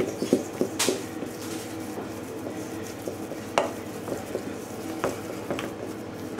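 Butter and flour being stirred together into a beurre manié in a bowl: a soft scraping stir with three sharp knocks of the utensil against the bowl, the first about a second in.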